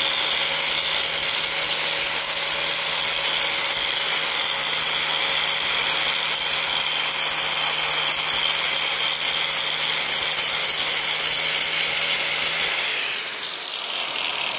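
Angle grinder running at speed, its disc grinding into a cast steel locomotive driving-wheel spoke to expose carbon pockets in the metal. It runs steadily and loud, then is switched off about 13 seconds in, its whine falling as it winds down.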